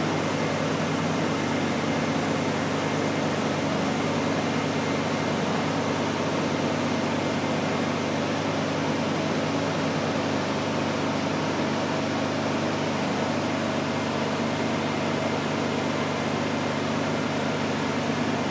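Steady running drone with several low hum tones and no change: a Honda EU2000 inverter generator running under load, with an electric fan as the load.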